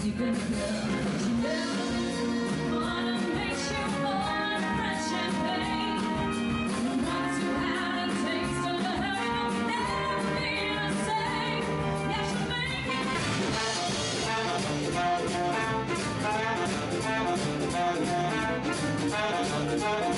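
Music in a jazz style, with instruments playing a melody.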